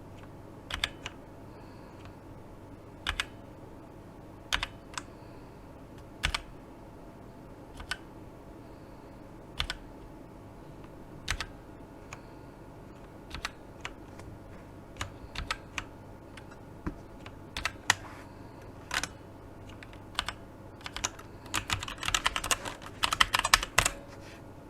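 Keystrokes on a Tecware Phantom 87 tenkeyless mechanical keyboard with tactile Outemu Brown switches. Single keys are pressed one at a time about every second and a half, then come closer together, and near the end there is a short run of fast typing.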